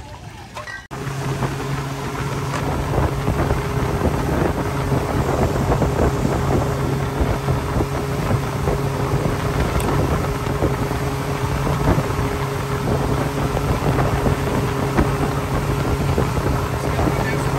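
Speedboat's outboard motor running steadily at speed, a constant drone mixed with rushing water and wind buffeting the microphone; it comes in suddenly about a second in, after a quieter start.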